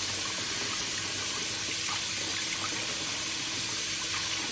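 Tap water running steadily as a small-engine carburetor is rinsed under it to flush out gummed-up old fuel residue.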